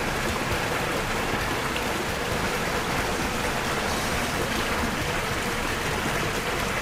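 Steady hissing rush of water spraying from a fire hose, a sound effect for putting out a fire.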